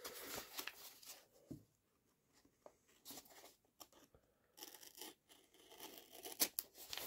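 Brown wrapping paper and packing tape on a parcel being slit with a small knife, with faint tearing and rustling of the paper. It rustles at first, goes almost quiet for a few seconds with a few small clicks, then the scraping and rustling start again.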